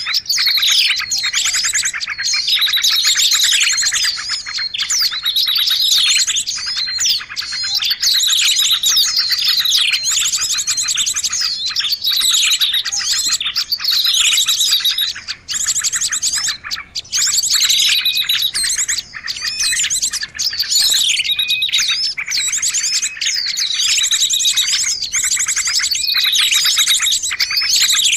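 Small birds chirping and trilling in a dense, unbroken chorus, many fast high calls overlapping: a bird-lure (pikat) recording for calling in small birds.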